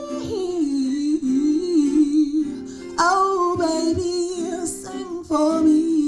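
A woman sings over an acoustic guitar, her voice gliding up and down in pitch with no clear words. A new phrase starts about three seconds in, and another near the end.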